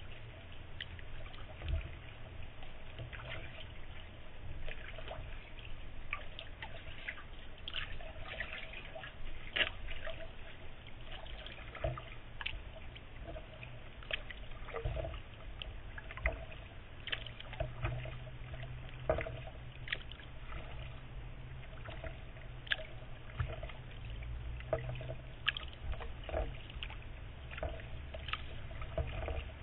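Kayak paddling on calm water: irregular small splashes and drips as the paddle blades dip and lift, over a steady low rumble.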